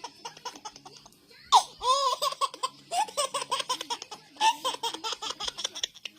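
High-pitched human laughter in repeated peals, loudest about a second and a half in, cutting off abruptly at the end.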